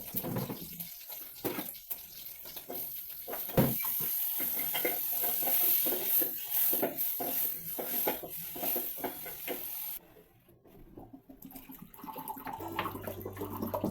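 Kitchen tap water running into a sink, with knocks and clatter of things being handled under it. The water cuts off suddenly about ten seconds in.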